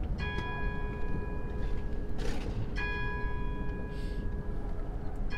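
A bell struck three times at a slow, even pace, about two and a half seconds apart, each stroke on the same note and ringing on until the next.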